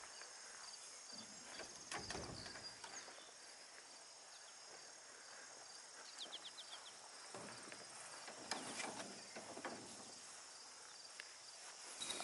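Faint, steady high-pitched chirring of crickets. A few soft knocks and rustles come about two seconds in and again around eight to ten seconds in.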